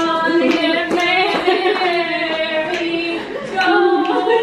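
Women's voices singing a melody, with notes held for a moment at a time.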